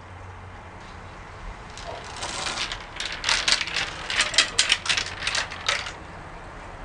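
Marble-elevator mechanism of a kinetic sculpture door: marbles and metal parts clicking and clacking in a quick irregular run. It starts about two seconds in, is loudest over the next few seconds, and stops near the end.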